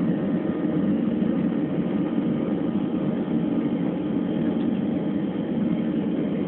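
Jet engines of a Ryanair Boeing 737 heard from inside the passenger cabin: a steady, even drone with a faint constant whine above it.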